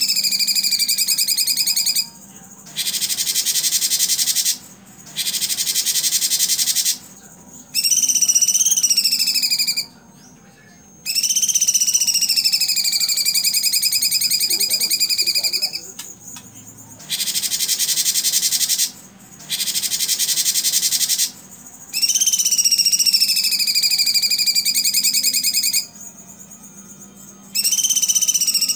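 Blue-winged leafbird (cucak cungkok) singing loud, rapid-fire 'tembakan' phrases a few seconds long with short pauses between. Some phrases are fast trills that dip and rise in pitch; others are harsh, raspy rapid chatter. A faint low hum runs underneath.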